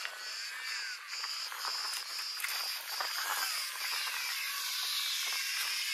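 A small RC plane's electric motor and propeller whining faintly as it flies low past, its pitch sliding up and down, over a steady hiss. Insects chirp in a regular pulse of about two a second.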